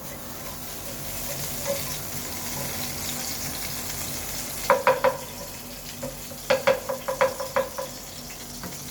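Hot oil sizzling steadily in a wok, with a metal ladle clinking against the pan in two bursts of quick taps, about halfway through and again a second or so later.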